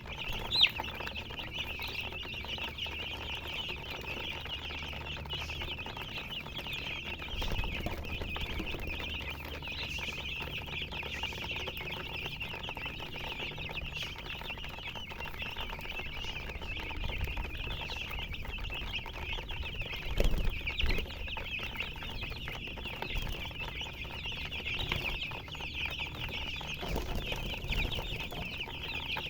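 Many baby chicks peeping at once in a continuous high chorus, with a few low thumps, the loudest about two-thirds of the way through.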